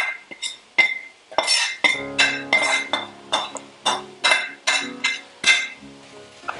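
A metal spoon knocking and scraping spice powder out of a small metal pan into a frying pan: a quick run of ringing metallic clinks, about three a second, stopping near the end.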